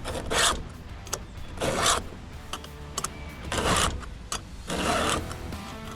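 Round chainsaw file rasping across the cutter teeth of a STIHL MS 180 C chain, four slow even strokes a little over a second apart.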